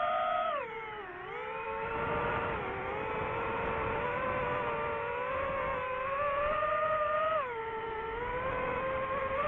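DJI FPV drone's motors and propellers whining in flight. The pitch drops about a second in, climbs back and holds fairly steady, dips again near the end, then rises as the throttle changes.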